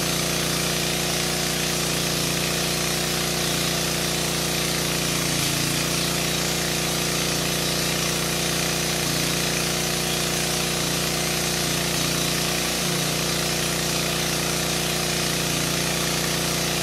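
Diesel generator engine running steadily at constant speed, a continuous hum with a dense rattle on top. The pitch wavers briefly about five seconds in and again near thirteen seconds.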